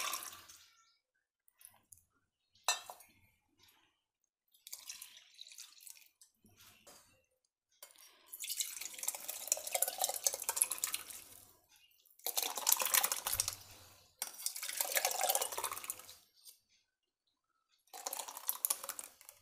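Mango milkshake poured back and forth between an aluminium jug and a steel tumbler: four splashing pours of one to four seconds each, starting about eight seconds in. A light metal clink comes earlier.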